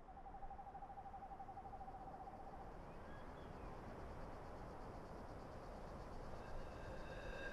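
A long, slightly wavering owl-like hoot over a faint low forest ambience; near the end a second, richer tonal call with several pitches begins.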